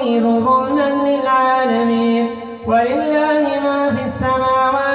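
An imam reciting the Quran in the melodic style: one voice singing long, held, ornamented notes, with a short break for breath a little past two seconds in.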